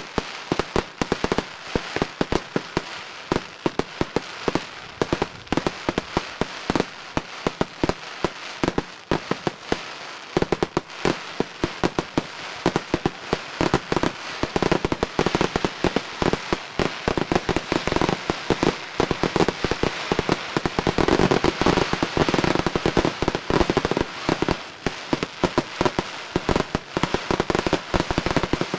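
Fireworks crackling: a dense, unbroken run of small sharp pops with louder cracks among them. It thickens and grows louder about halfway through.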